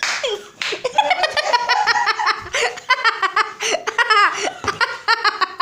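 People laughing hard, many quick laughs in a row.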